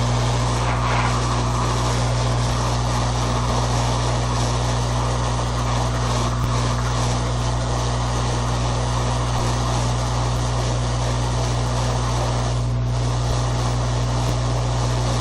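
Hot-air rework equipment blowing steadily, with a low steady hum, as a circuit board is preheated before a chip is removed; the rush briefly drops away near the end.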